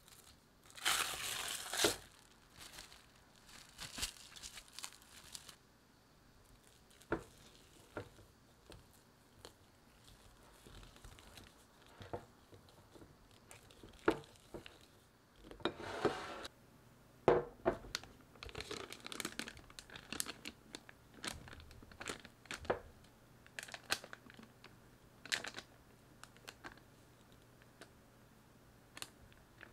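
Plastic cling film crinkling loudly as it is peeled off a glass mixing bowl, then a silicone spatula stirring thick batter with sharp taps against the glass. Further bouts of crinkling come from a plastic piping bag as the batter is scooped into it.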